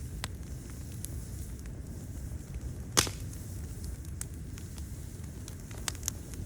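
Wood fire burning outdoors: a steady low rumble of flames with scattered sharp crackles and pops, one loud snap about halfway through and a couple more near the end.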